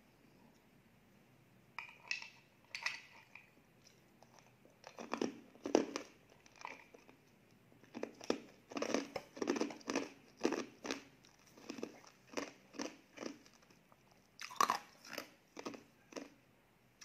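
Close-miked chewing and mouth sounds of a person eating, in short irregular chews that come thickest in the middle, with one louder bite near the end.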